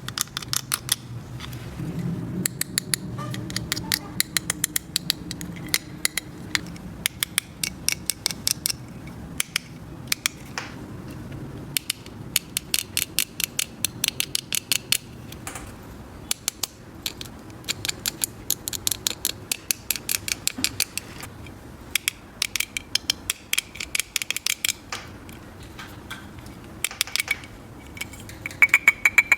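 Many small sharp clicks and taps in quick runs, from small hard plastic toy pieces being handled and set down.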